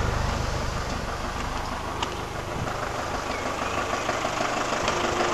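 Ford Transit 2.5 diesel engine idling steadily, running with an HHO generator fitted. It is heard first at the tailpipe and grows louder near the end.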